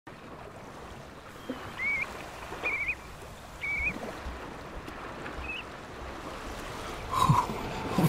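Four short whistled shorebird calls, each rising slightly and wavering, spaced about a second apart, over a steady wash of surf on the beach. A short knock sounds near the end.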